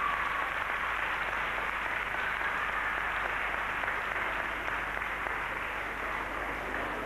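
Audience applauding steadily, with the last held note of the routine music fading out in the first half second.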